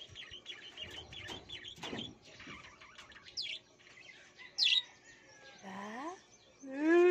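Small birds chirping rapidly in the background, with two sharper, louder chirps midway. Near the end comes a drawn-out call that rises in pitch and then holds, the loudest sound here.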